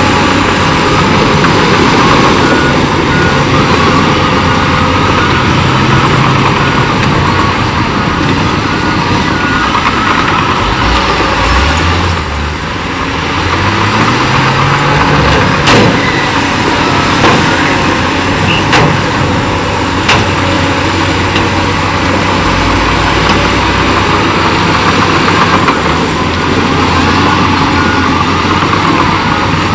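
Heavy diesel earthmoving machinery, bulldozer and dump trucks, running steadily under load. Engine pitch rises about halfway through, followed by a few sharp knocks.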